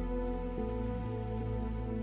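Slow, sustained ambient background music with held chords; the chord changes about half a second in.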